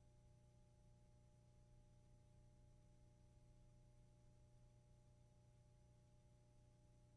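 Near silence: a faint steady low hum with a few thin unchanging tones and hiss, the background noise of the recording.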